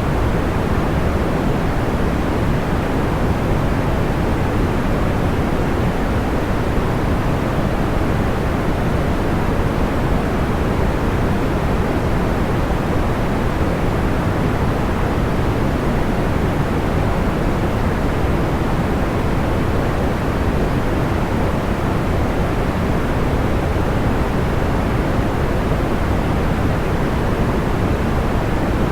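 Steady, soft white noise of the pink-noise kind, a deep even hiss with its highs rolled off, unchanging and without crackles or pops.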